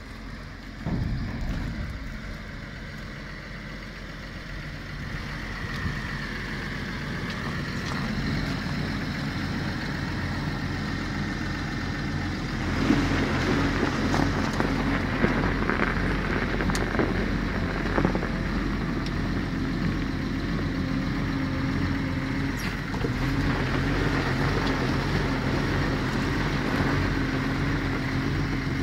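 Diesel engine of a John Deere 1110D forwarder running steadily at idle, growing louder about halfway through.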